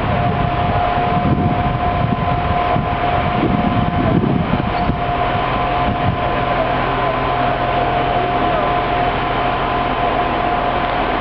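Diesel railbus approaching slowly along the platform, its engine running steadily with a constant high whine over the rumble.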